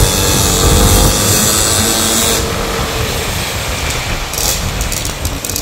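Small 50cc two-stroke mini dirt bike engine buzzing as it is ridden along; the sound changes about halfway through.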